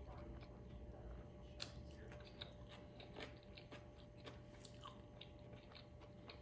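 Faint chewing and wet mouth sounds of a person eating fast food close to the microphone, with scattered small clicks from lips and teeth.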